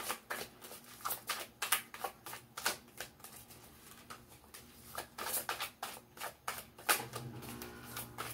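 A tarot deck being shuffled by hand: a quick, irregular run of papery card flicks and slaps. A faint low hum comes in near the end.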